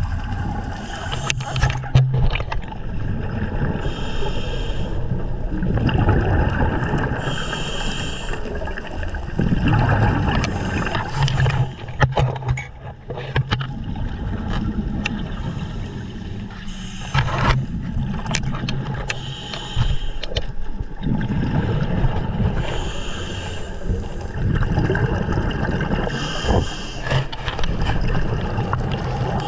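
Underwater sound of a diver at work: exhaled bubbles gurgling in bursts every few seconds, with knocks and scrapes of gear and the catch bag.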